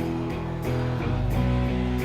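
Rock band playing live, with guitars strumming sustained chords that change about every half second to a second. No singing.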